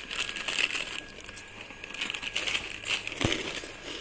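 Irregular crinkling and rustling in short bursts, with a single soft knock near the end.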